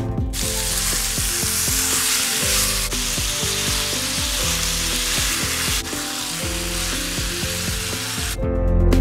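Marinated chicken strips sizzling as they fry in a hot pan. The hiss starts just as the chicken is tipped in and stops suddenly near the end. Soft guitar music plays underneath.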